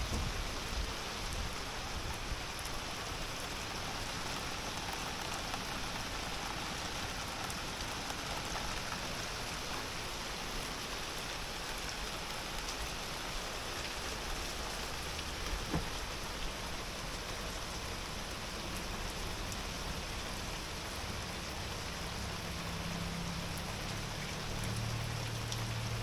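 Heavy rain falling steadily on a sailboat. A low steady hum joins near the end.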